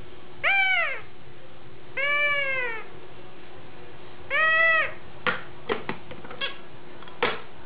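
A baby's noise-maker toy playing three separate cat meows, each rising and falling in pitch, followed by a few sharp clicks and knocks from the toy being handled.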